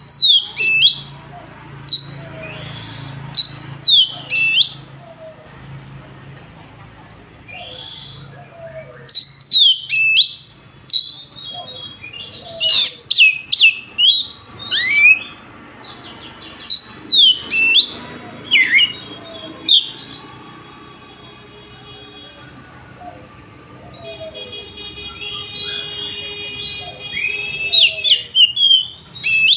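Oriental magpie-robin singing loud, sharp whistled notes that sweep steeply downward, delivered in quick bursts several seconds apart. About two-thirds of the way through comes a quieter stretch of held, buzzy trilled notes, then a final burst of sharp whistles near the end.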